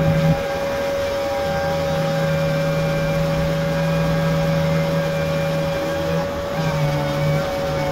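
Shop vacuum running steadily as dust extraction for a sander working on the car's paint: a constant whine, with a lower hum that breaks off briefly a few times as the sander is worked.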